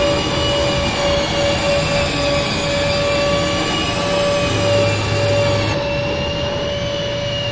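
Long-reach drywall sander running against a plasterboard ceiling, with its dust-extraction vacuum: a loud, steady machine whine with a slightly wavering high pitch over a hiss.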